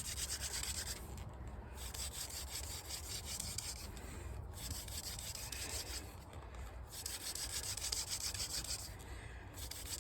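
Hand drill at work: a wooden spindle spun between the palms, grinding in a wooden hearth board, in runs of a couple of seconds broken by short pauses about every two to three seconds.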